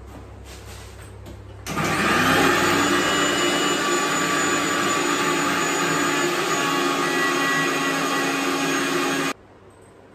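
Electric kitchen mixer-grinder switched on about two seconds in, its motor whining up to speed and then running steadily as it grinds tomato chutney, then switched off abruptly near the end.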